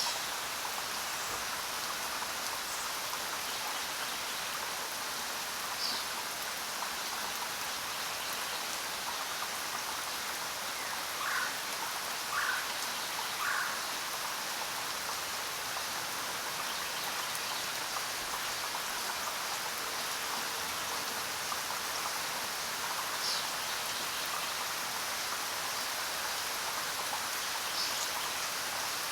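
Steady rain falling. A few short animal calls come through it: three in a row about a second apart midway, and a few brief high chirps scattered through.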